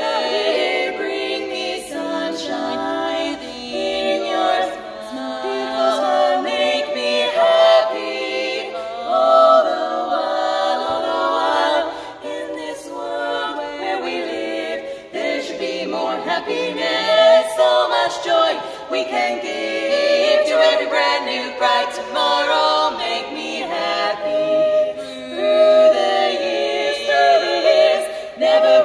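Women's a cappella quartet, four female voices singing together in harmony without accompaniment.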